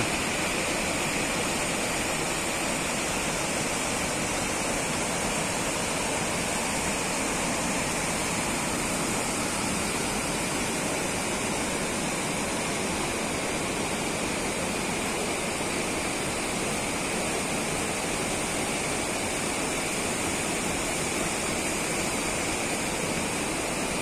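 Small waterfall and the rocky stream below it rushing, a steady, unbroken noise of falling and running water.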